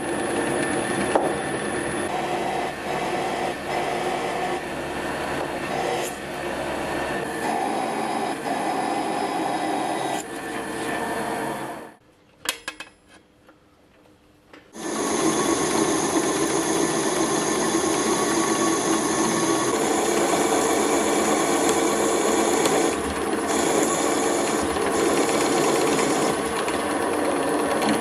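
Drill press running with its bit cutting into a metal flange plate: a steady motor whine under the grinding of the cut. It breaks off about twelve seconds in and starts again some three seconds later.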